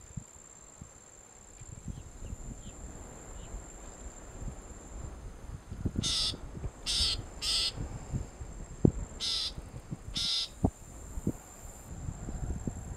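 Loggerhead shrike calling from its perch: five short, harsh, raspy calls, three in quick succession about six seconds in, then two more a few seconds later.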